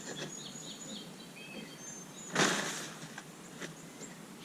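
A short rustle of handling noise about halfway through, over faint high chirps and a few light clicks.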